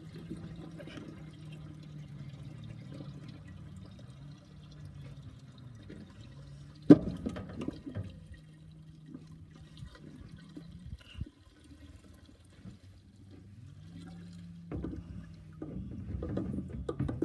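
Gasoline pouring from a gas can's spout into a lawnmower fuel tank, with a low steady hum beneath and one sharp knock about seven seconds in.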